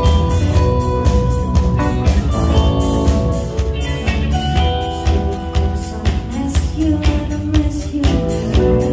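Live rock band playing: drum kit keeping a steady beat under guitars and keyboard, with a female singer singing into a microphone.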